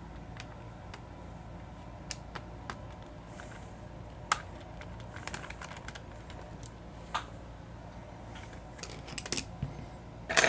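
Scattered small clicks and ticks of a screwdriver and hands working on an Xbox Elite 2 controller's plastic shell while its security Torx screws are taken out. The clicks come singly or in short runs, with the loudest cluster near the end.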